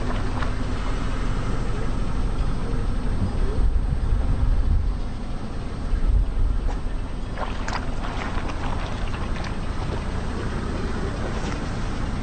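A car's steady low rumble as it rolls slowly, with a few sharp cracks and crunches about two-thirds of the way through as objects give way under the tyres.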